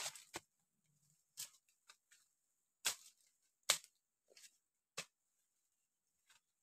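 Footsteps crunching through dry leaf litter and twigs on the forest floor: about eight faint, irregular crunches, with near silence between them.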